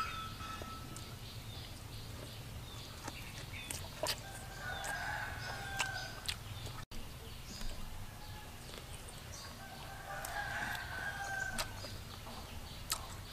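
Two drawn-out animal calls, each about a second and a half long, the first about four and a half seconds in and the second near ten seconds, over scattered sharp clicks and taps and a low steady hum.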